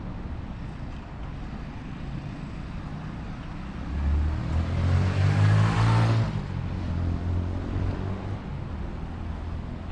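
A road vehicle drives past close by: engine and tyre noise swell about four seconds in, peak a second or two later, then fade away, over a steady hum of street traffic.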